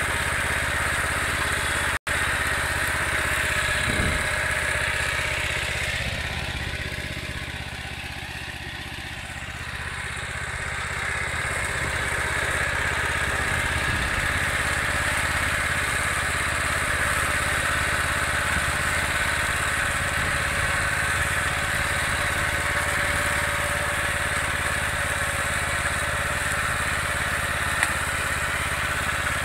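Motor Sich MB6 walk-behind tractor's petrol engine running steadily under load, driving a KRN-2S rotary mower through alfalfa in second reverse gear. The sound dips for a few seconds about seven seconds in, and cuts out for an instant about two seconds in.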